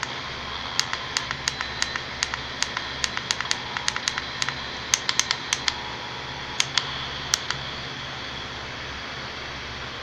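Quick, irregular plastic clicks of the buttons on a handheld La Crosse weather radio as it is tuned, about twenty in the first seven seconds, over a steady hiss; after that only the hiss continues.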